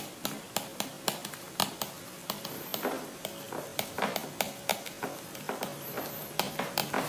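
Computer keyboard being typed on: a run of sharp, irregular key clicks, several a second.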